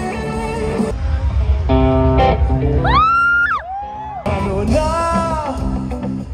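A live rock band playing, with electric guitar and singing, heard from within the crowd. The sound jumps abruptly twice between short clips, and around the middle a high held note swoops up and falls away.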